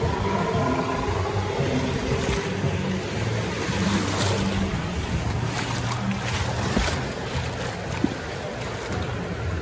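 Water rushing and sloshing around a river-rapids raft as it floats along the ride channel, over a low steady hum. A single short knock near the end.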